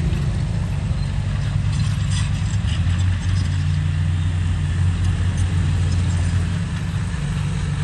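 Excavator diesel engine running steadily, with a few light metallic clanks in the first few seconds.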